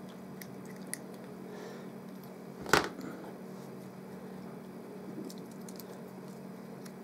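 Small FPV camera and its wiring being handled by hand on a bench, with a few faint clicks and one sharp knock a little under three seconds in, over a steady low hum.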